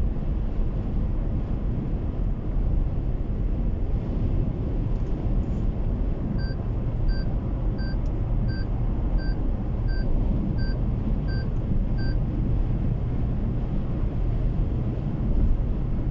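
Road noise inside a car at highway speed: a steady low rumble of tyres and engine. Partway through, a short electronic beep sounds nine times, about 0.7 seconds apart.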